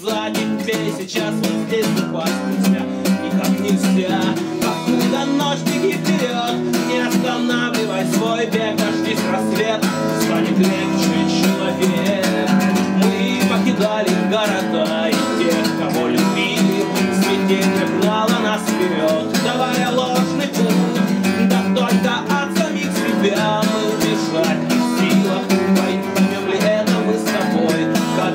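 Steel-string acoustic guitar strummed steadily, with a man singing over it.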